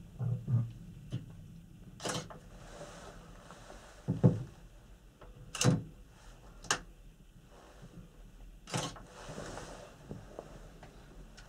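Irregular knocks, clunks and creaks inside a Panoramic Mont Blanc gondola cabin, about eight separate hits over a low steady hum, the loudest about four seconds in.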